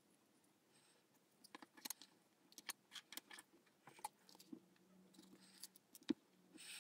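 Faint handling noises: a run of small clicks and taps as a small speaker driver, its wooden box and a glue tube are moved about on a wooden desk, with one sharper click a little after six seconds in.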